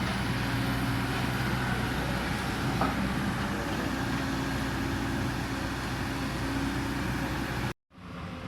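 Excavator diesel engine running steadily with a low hum. Near the end the sound cuts out abruptly for a moment, then a quieter engine sound follows.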